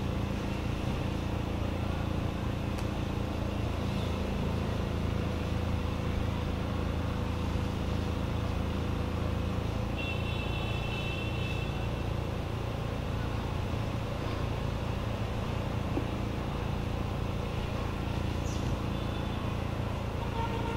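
Steady low engine hum, with a brief high-pitched tone about ten seconds in.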